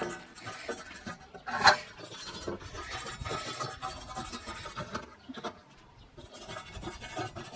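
Hand wire brush scrubbing rust off a ribbed steel rebar rod, an uneven rough scratching with one sharp click about two seconds in.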